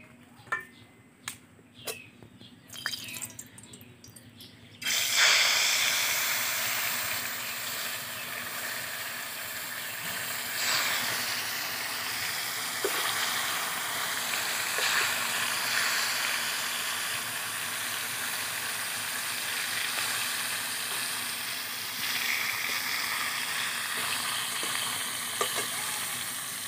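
Turmeric-rubbed fish pieces going into hot mustard oil in a karahi. The oil breaks into loud sizzling about five seconds in and keeps frying steadily, with a few light clicks of handling before it and now and then after.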